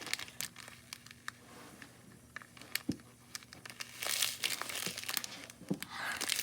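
Slime being squeezed and poked by hand, giving scattered small crackling clicks and pops that thicken about four seconds in and again near the end.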